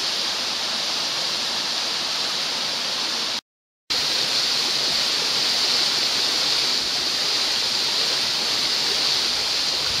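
A tall, thin waterfall falling down a cliff of columnar basalt into a rocky pool: a steady hiss of falling water. It cuts out for about half a second a little past three seconds in.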